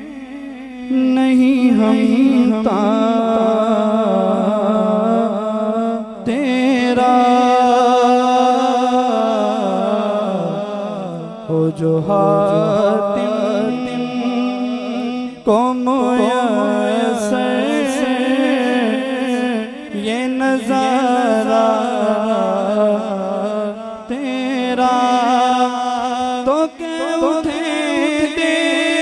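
A man singing an Urdu naat into a microphone: long, ornamented melodic phrases with short breaks for breath, over a steady low hum.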